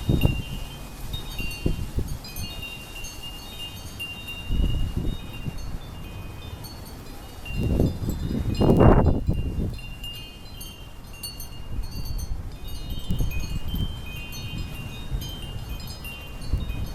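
Wind chimes ringing continually in a gusty windstorm. Gusts rumble on the microphone, the strongest about eight to nine seconds in.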